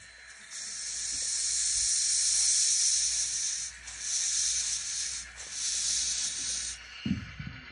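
Steady high steam hiss from an N scale Union Pacific steam locomotive model, dropping out briefly twice and stopping near the end, followed by a short low thump.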